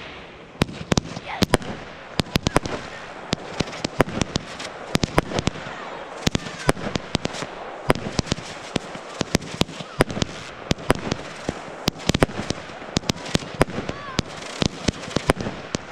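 Fireworks display being fired: a dense, continuous run of sharp bangs and crackles from aerial shells and rising comets, several a second.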